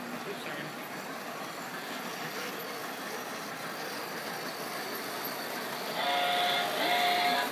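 Toy electric train rolling around its track in a steady clatter. About six seconds in, its steam whistle blows in two short blasts.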